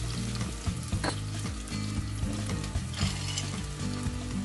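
Chopped onion sizzling in hot oil in a terracotta casserole as a batch of green peas is tipped in, with a sharp clack about a second in.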